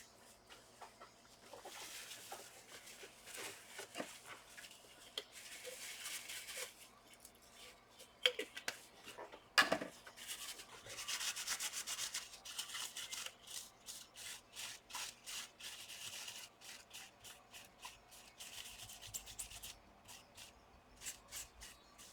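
Wiping and rubbing old thermal paste off a laptop's CPU and GPU chips with alcohol, in short back-and-forth strokes that come quicker and more evenly in the second half. A sharp click sounds a little under halfway through.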